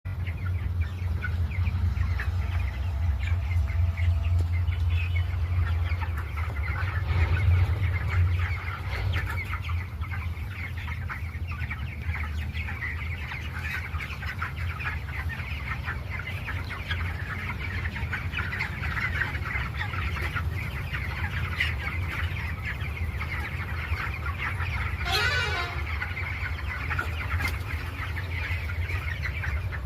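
A flock of chickens clucking and chattering continuously, many short calls overlapping, over a steady low hum. One longer, louder call stands out about 25 seconds in.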